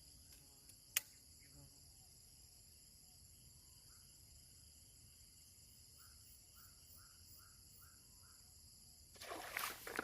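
Steady high-pitched chorus of insects in the background, with one sharp click about a second in and a quick run of six faint chirps later on. A sudden loud commotion breaks in near the end.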